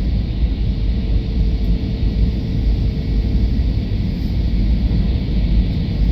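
Airbus A320 airliner noise: a steady, deep rumble with a faint steady hum held on one pitch.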